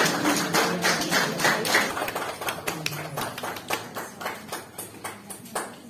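Small audience clapping by hand, the individual claps plain to hear; the applause thins out and fades away toward the end.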